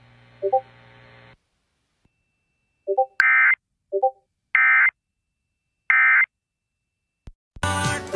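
Emergency Alert System SAME header: three short bursts of screeching digital data tones, about 1.3 seconds apart, with two short chime-like blips before the first two bursts. Near the end a loud, harsh buzzing tone starts.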